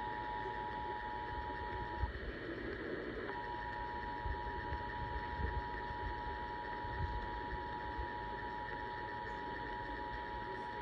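Emergency Alert System two-tone attention signal: a steady dual tone of about 853 and 960 Hz sounding together. It breaks off about two seconds in, returns about a second later and holds, over a steady background hiss.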